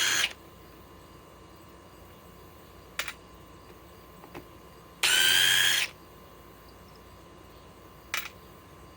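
DeWalt DCF860 cordless impact driver on its lowest speed setting, running in one steady whine for about a second, about five seconds in, backing a screw out of wood. Two light clicks come before and after it.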